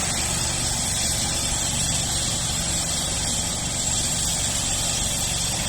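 Road-works machinery engine running steadily at night, an unbroken low hum with a thin steady high tone above it.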